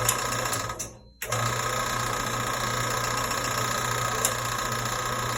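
Central Machinery horizontal/vertical metal-cutting bandsaw switched on and running with its newly fitted blade: a short run that dies away, then restarted about a second in and running steadily with a low motor hum, switched off near the end and winding down.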